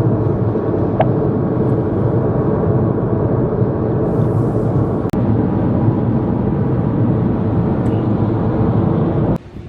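A loud, steady, low rumbling noise that cuts off suddenly near the end.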